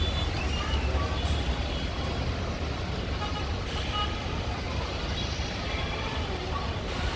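Airport apron noise: a steady low rumble of distant jet engines and ground vehicles, with faint snatches of distant voices.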